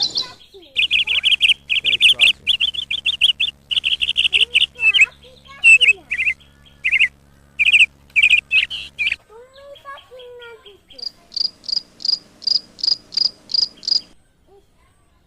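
Small birds chirping in quick bursts of rapid, repeated high notes, followed near the end by a run of evenly spaced higher chirps, about three a second.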